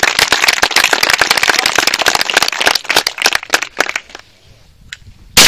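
Audience clapping in a dense, irregular patter that fades out about four seconds in. Near the end comes one loud shotgun shot.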